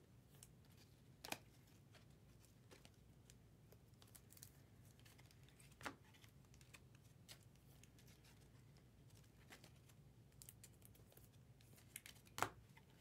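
Near silence with a few faint rustles and clicks of trading cards and foil packs being handled, the clearest about a second in, around six seconds in and near the end.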